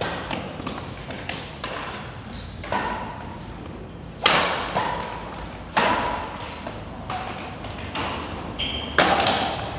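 Badminton rackets striking the shuttlecock in a doubles rally: a series of sharp hits with echo from the hall. The hardest hits come about four seconds in and again near the end.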